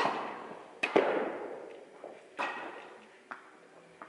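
Tennis rally: sharp pops of rackets striking the ball and of the ball bouncing, each followed by a long echo in a large indoor tennis hall. The loudest hits come at the start and about a second in, with fainter ones later.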